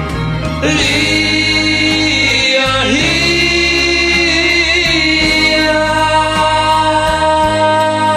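Music: a 1968 pop ballad's wordless break, with sustained choir-like harmonies coming in about a second in over a steady bass line.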